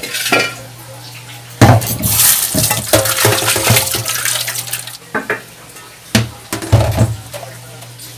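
Water running from a kitchen tap for about three seconds, with pots and utensils clinking and clattering before and after it.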